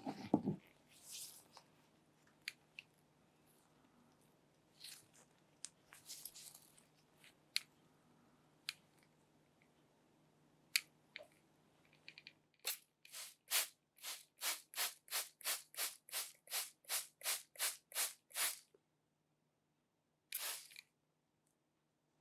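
Hands handling packaging: scattered clicks and short rustles, then a run of about twenty quick, even scraping strokes, roughly three a second, and one more a little after. A faint steady hum underneath stops about halfway through.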